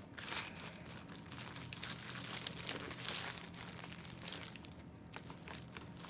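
Packaging being handled and opened: irregular crinkling and rustling with small clicks and crackles.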